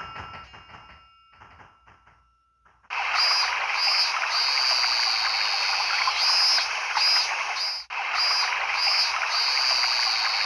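MS500 mobile phone nature-sound ringtone: chirping animal calls over a rushing, water-like hiss. It starts suddenly about three seconds in, after the previous electronic ringtone's held tone fades out, and it loops, cutting off for an instant and restarting about five seconds later.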